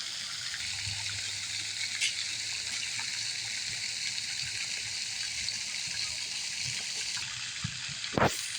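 Steady hissing noise like running water, with a few faint ticks and one sharp click near the end.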